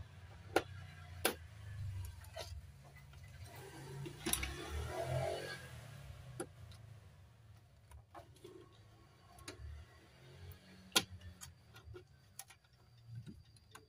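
Scattered sharp clicks and a rustle about four seconds in, from hands working the wire harnesses and plug connectors on an opened LCD TV's main board, over a low steady hum.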